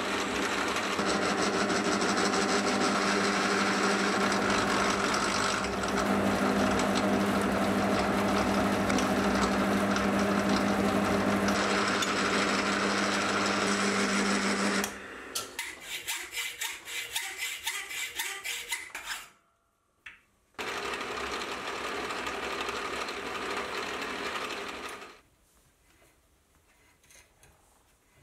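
Small metal lathe running while turning a steel rod: a steady machine hum with a few held tones. About fifteen seconds in it changes to a fast, even ticking, breaks off briefly, runs steadily again for a few seconds, then drops to a low level with faint small sounds near the end.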